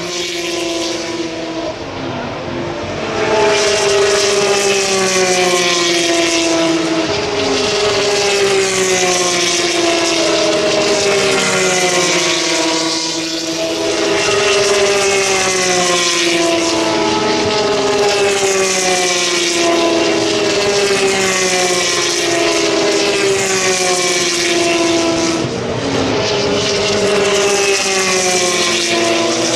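Single-seater racing cars at high revs, loud throughout, their engine notes sliding down in pitch and jumping back up again and again as they change gear, one car after another, with a brief lull about halfway through.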